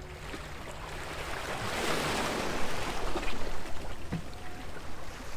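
Sea waves washing in, with a rush of surf that swells about two seconds in and then eases, over a low rumble of wind on the microphone.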